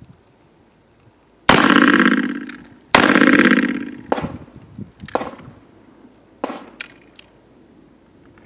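Two shots from a Smith & Wesson Model 629 .44 Magnum revolver, about a second and a half apart, each ringing out over about a second. A few much fainter sharp pops follow.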